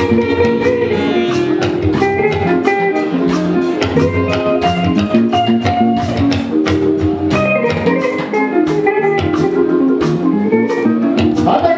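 Live stage band playing an instrumental passage: guitar lines over steady drumming, with no singing.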